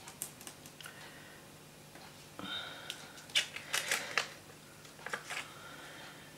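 Light clicks and taps from fingers and a pen-like pick-up tool working a plastic sheet of adhesive heart gems, lifting one off and setting it onto a paper card. The clicks come in small clusters, busiest about three and a half to four seconds in.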